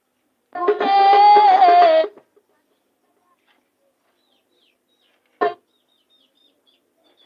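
A short burst of music with a melody line, cut off abruptly about two seconds in. A single sharp click comes about five seconds in, with faint bird chirps near the end.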